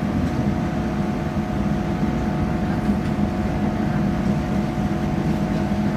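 Passenger train running at steady speed, heard from inside the carriage: a continuous low rumble with a faint steady hum.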